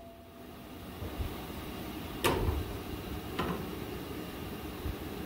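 Two light knocks of metal on the steel axle brackets, about a second apart, as a spirit level is moved against them, over a steady low background hum.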